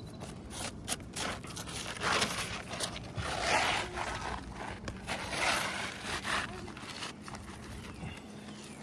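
Asphalt roof shingles scraping and rustling as they are handled and slid into place, in several swells with a few light clicks.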